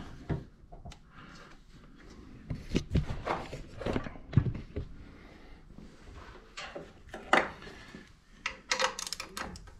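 Irregular light knocks and clicks, a few at a time, with rustling handling noise in between, over quiet room tone.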